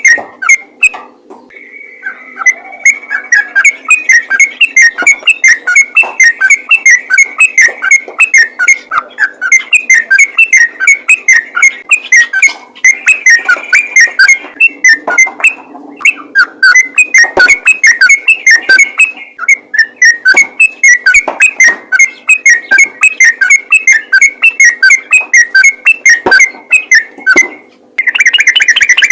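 Yellow-vented bulbul (trucukan) giving its fast, chattering 'ropel' song: rapid bubbly notes repeated several times a second in long runs with a few short breaks, recorded very loud and distorting. Near the end it changes to a denser, unbroken trill. This is a lure call used to get other bulbuls calling.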